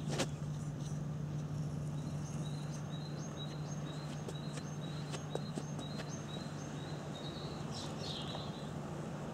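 Tamiya radio-controlled trucks driving slowly over dirt, with a steady low hum and scattered clicks. A small bird sings a repeated two-note phrase from about two seconds in until near the end.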